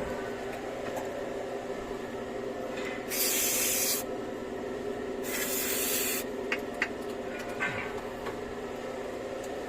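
Aerosol contact cleaner sprayed in two bursts of about a second each, a second apart, followed by a few small clicks.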